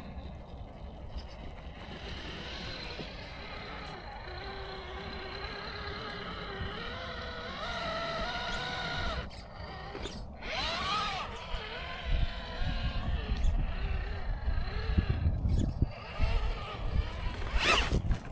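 RC rock crawler's electric motor and gears whining as it crawls over rocks, the pitch rising and falling with the throttle. About twelve seconds in, a low rumble with sharp knocks grows louder.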